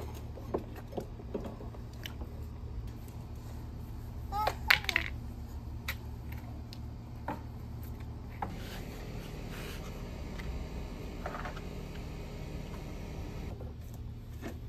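Children playing with water and plastic toys: scattered taps and clinks, one short high child's squeal about four and a half seconds in, the loudest moment, and from about halfway a steady trickle of water, all over a constant low hum.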